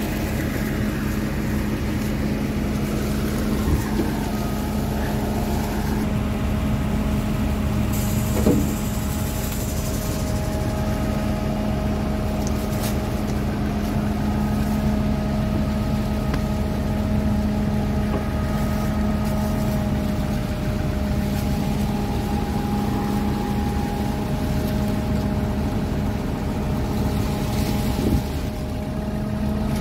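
Combine's diesel engine idling steadily with a constant low hum, while the corn head's drive stands still. A few short metallic clanks come from hands and a wrench on the head's chain drive, one about four seconds in, one near nine seconds, and one near the end.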